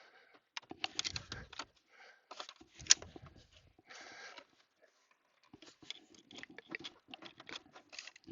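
Hands working at plastic dashboard trim and a stuck vent: scattered light clicks, scrapes and rustling, with a short scraping rub about four seconds in.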